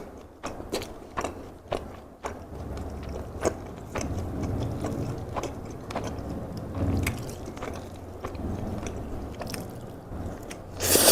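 Close-miked chewing of takoyaki, with wet mouth clicks and smacks at an uneven pace; the balls are still hot. Near the end there is a brief, loud rush of noise.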